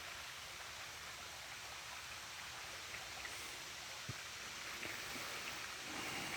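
Faint, steady outdoor ambience: an even hiss with a few soft ticks.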